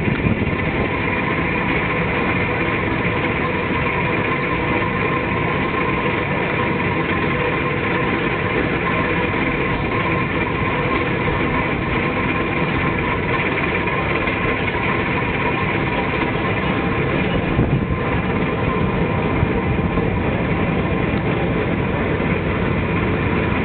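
Railroad turntable turning with a diesel locomotive aboard: a steady mechanical rumble with an even hum and a few steady high tones, unchanging throughout.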